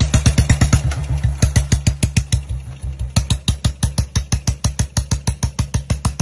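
Royal Enfield single-cylinder motorcycle engine running, its exhaust giving a rapid, even thumping beat of about seven pulses a second.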